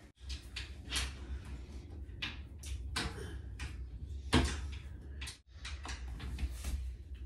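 Irregular light clicks and knocks of a metal-frame shelf unit being handled and pressed together during assembly, with one louder knock about four and a half seconds in, over a low steady hum.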